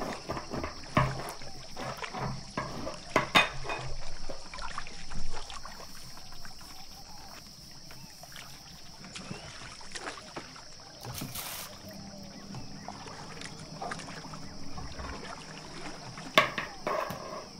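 Long thin rolling pin rolling and knocking against a wooden board as yufka dough is rolled out, with irregular knocks in the first few seconds and again near the end. In between, softer brushing as hands smooth starch over the dough.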